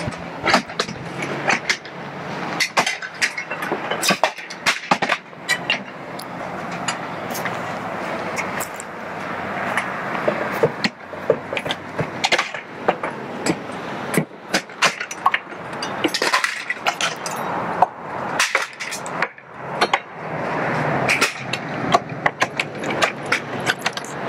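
Asbestos siding shingles being pried off a house wall and shattering as they hit the ground: an irregular string of sharp cracks and clatters over steady background noise.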